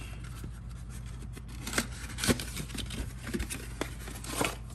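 Oil filter's cardboard box being opened and the new filter slid out: rustling and scraping of cardboard with a few sharp clicks.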